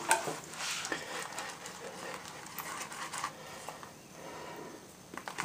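A synthetic shaving brush swirled round a lathering bowl, whipping shaving soap into a thick lather: wet swishing strokes that ease off near the end.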